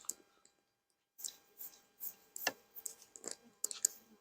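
A dozen or so light, irregular clicks and taps starting about a second in, from a wooden hive frame being handled and brushed free of bees.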